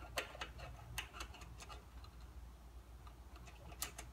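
Flathead screwdriver unscrewing the jet from a Honda-clone engine's carburetor: faint, irregular small metallic clicks as the blade works in the jet's slot, in a cluster near the start and a few more near the end.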